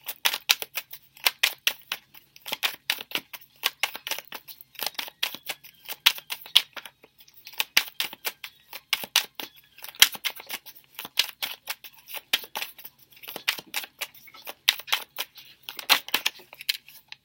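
A tarot deck being shuffled by hand: rapid runs of crisp card clicks in bursts, with brief pauses between them.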